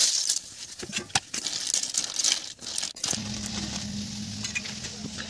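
River snails tipped into hot oil in an aluminium karahi: a loud sizzle as they hit, then crackling and clicking as they fry in the spitting oil. About three seconds in it settles into a steady frying hiss with a low hum beneath it.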